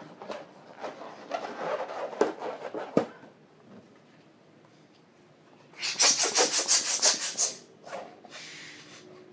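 Inflated 6-inch latex balloons rubbing against each other and against the hands as they are handled and twisted together, with two sharp taps in the first three seconds. About six seconds in comes a fast run of rubbing strokes, about eight a second for under two seconds, the loudest part.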